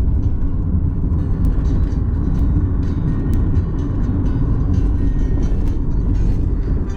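Steady low rumble of a running motor vehicle, with faint light ticks and clicks over it.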